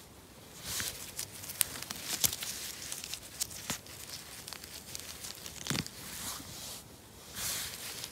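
A gloved hand rustling through moss and pine needles while picking mushrooms, with scattered sharp clicks and crinkling.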